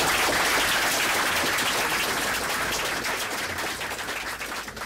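Audience applauding, the clapping slowly dying away towards the end.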